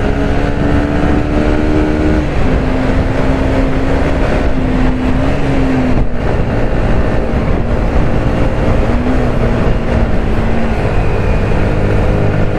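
Yamaha R15 V3's single-cylinder engine pulling steadily at cruising speed, heard from the rider's seat under wind rush. The engine note steps down slightly about two seconds in as the bike shifts from third into fourth gear.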